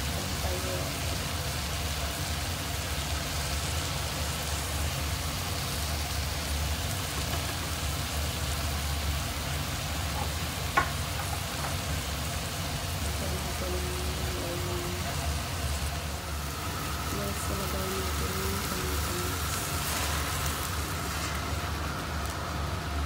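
Spiced chicken frying in a stainless-steel pot, a steady sizzle, with one sharp click about eleven seconds in.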